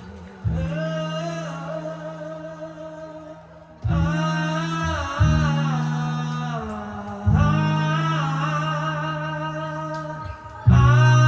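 Live acoustic performance of a pop-rock song: low notes struck and held every one to two seconds, with singing over them.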